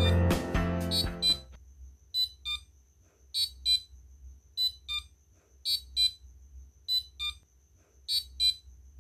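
Active piezo buzzer of an Arduino alarm clock sounding its alarm: short high-pitched beeps in pairs, the pair repeating about every 1.2 seconds. Background music fades out during the first second and a half.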